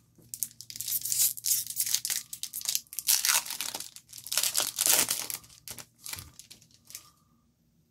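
Foil baseball-card pack wrapper crinkling in the hands and being torn open: a run of sharp crackles and rips that stops about six seconds in.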